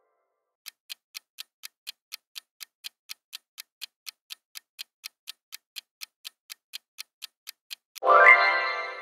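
Countdown-timer ticking sound effect, clock ticks at about four a second. Near the end the ticking stops and a loud pitched sound effect plays, rising in pitch and then dying away as the timer runs out.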